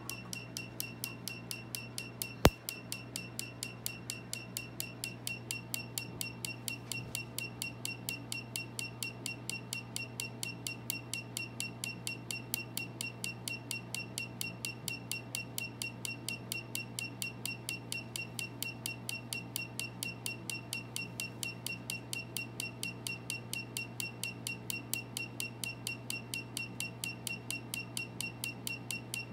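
Tattoo-removal laser firing a steady rapid train of pulses, about four or five a second, each a short snap with a high beep, over a steady low hum. One much louder sharp snap comes about two and a half seconds in.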